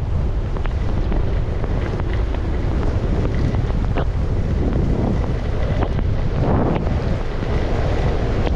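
Wind buffeting the microphone of a camera moving fast downhill, over the steady hiss of skis or a board sliding on snow. The snow hiss swells briefly about six and a half seconds in, with a few small clicks along the way.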